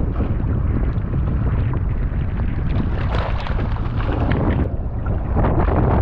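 Strong wind buffeting the microphone: a steady low rumble with gusts, growing a little stronger near the end.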